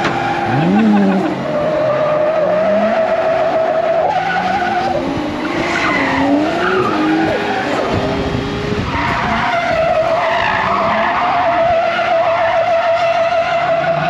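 Tyres squealing in a long, wavering screech as a Mitsubishi Express van drifts, heard from inside the cabin, with the engine revving up and down beneath it. The squeal drops out briefly around the middle and comes back for the last few seconds.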